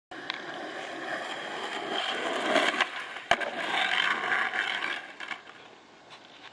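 Skateboard wheels rolling on asphalt, getting louder, with one sharp clack a little over three seconds in. The rolling then fades out near the end.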